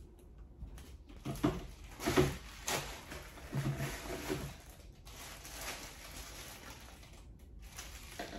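Hard plastic parts of a juice extractor knocked and clacked together as it is handled and assembled, a handful of knocks in the first half. A quieter crinkling of plastic wrapping follows.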